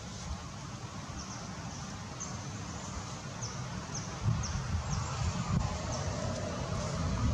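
Outdoor ambience: wind rumbling on the microphone, swelling a few times, with short, high, falling chirps scattered through it.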